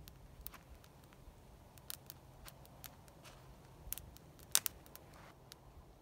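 Faint, irregular sharp clicks and ticks, about a dozen, the loudest about four and a half seconds in, over a quiet low background.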